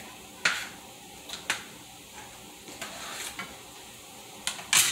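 Kitchen knife chopping onion on a plastic cutting board, a few sharp chops about a second apart, over a steady sizzle of food frying in a pan. Near the end comes the loudest clatter, as the chopped onion is scraped from the board into the pan.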